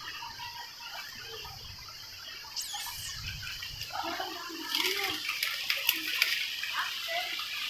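Footsteps splashing and sloshing through shallow, muddy stream water, louder for a couple of seconds past the middle, over a steady high hiss.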